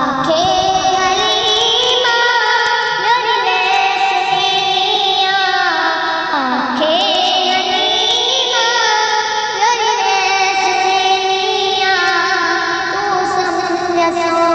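A naat being sung: a single voice holding long notes that slide up and down, with a deep dip about halfway through.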